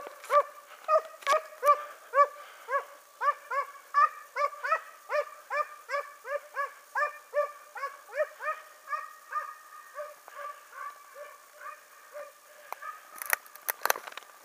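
Hunting hounds baying in a steady run of short yelps, about three a second, that slowly grow fainter: the pack giving tongue on a hare's trail. A short cluster of knocks comes near the end.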